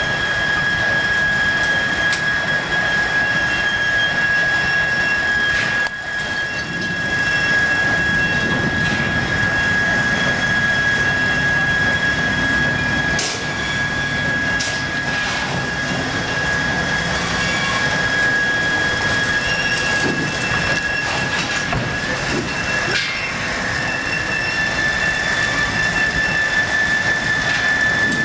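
Steam-driven sawmill machinery running steadily, with a constant high-pitched whine over a mechanical rumble. A few knocks come as a log is rolled and set on the carriage with cant hooks.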